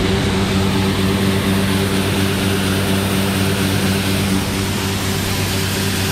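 A John Deere S670 combine running steadily while its unloading auger pours black beans into a grain trailer. A droning engine and auger hum sits over the hiss of the pouring beans.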